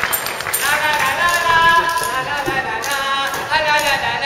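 A wind instrument playing a melody of held notes that step up and down, starting about half a second in, over the last claps of applause.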